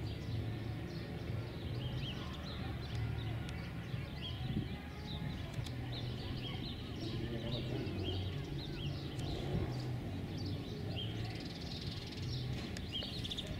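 Small birds chirping over and over, short high calls scattered throughout, over a steady low hum.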